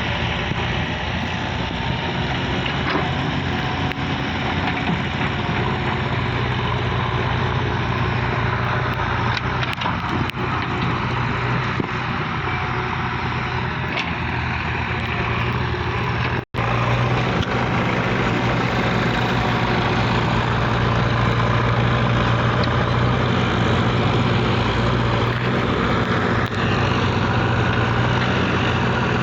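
Diesel engine of a JCB backhoe loader running steadily with a low hum. It cuts out for an instant about halfway and comes back slightly louder.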